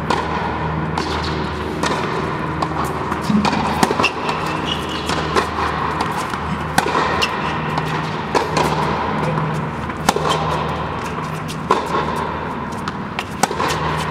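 Tennis balls being struck by rackets and bouncing, sharp irregular knocks echoing in a large indoor tennis hall, over steady background music.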